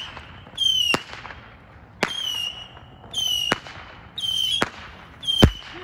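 Fireworks going off in a steady series about once a second, each shot a short high whistle falling slightly in pitch with a sharp crack. The loudest, deepest crack comes near the end.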